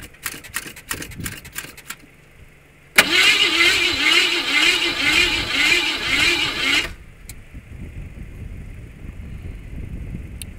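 Rapid clicking, then a car's starter motor cranking the engine for about four seconds, pulsing about twice a second, on a car that won't start. The cranking cuts off suddenly and a low steady rumble follows.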